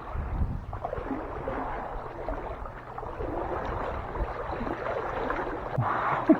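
A person wading through standing floodwater in boots, the water sloshing and swirling around the legs with each stride.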